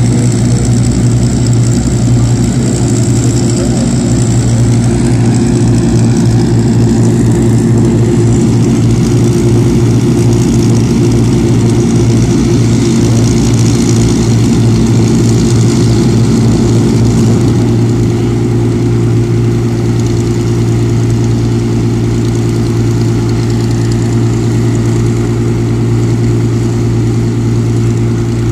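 North American Harvard's Pratt & Whitney R-1340 Wasp nine-cylinder radial engine and propeller running on the ground at a steady low speed. It eases slightly and smooths out about two-thirds of the way through.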